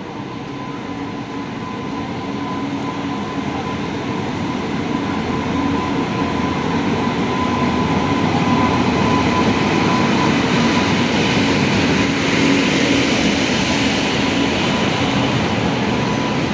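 Indian Railways WAP-7 electric locomotive and its passenger coaches arriving along a station platform. The noise builds steadily as the locomotive draws alongside and the coaches roll past, with a steady whine over the rumble of wheels on rail.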